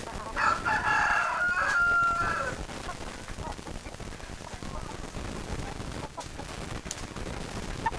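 Rooster crowing once near the start, a call of about two seconds that ends on a held note. After it there is a lower steady background with a few faint clicks.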